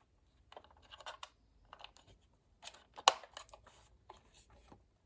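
Plastic clicks and scrapes from a VTech CS5121 cordless phone base being handled and its buttons pressed, with one sharper click about three seconds in.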